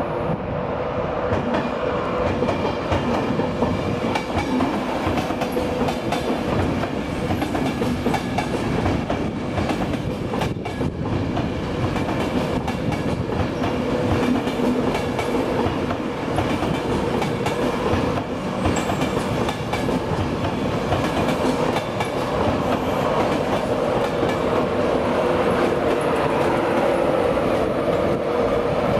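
An electric InterCity 225 passenger train, Mark 4 coaches pushed by a Class 91 locomotive, rolling past while arriving at a platform. The wheels clickety-clack over rail joints and pointwork under a steady hum that grows a little louder near the end.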